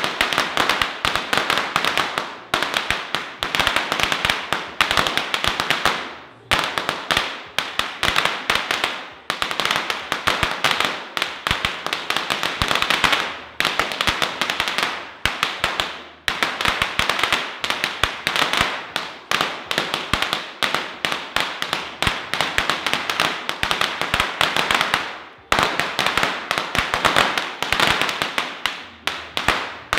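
A long hanging string of firecrackers going off in a rapid, continuous crackle of sharp bangs, with a few brief lulls.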